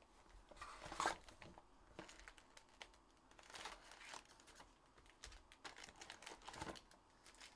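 Faint crinkling and rustling of wrapped trading-card boxes being handled, with a few soft knocks and clicks, loudest about a second in.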